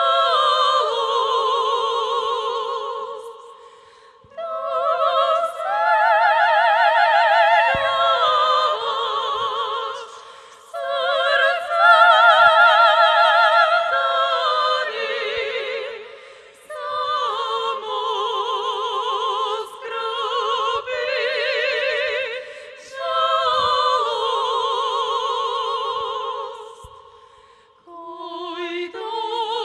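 Three female sopranos singing in harmony in operatic style with strong vibrato, in phrases broken by short pauses every five or six seconds.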